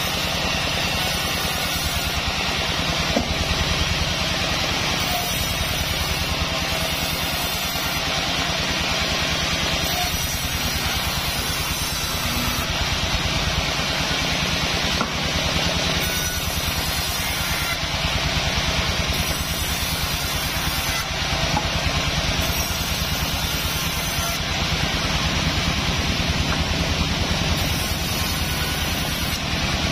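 Large sawmill band saw running steadily as its blade rips through a Sonokeling (Indonesian rosewood) log, cutting it into slabs: a constant machine drone with the hiss of the blade in the wood.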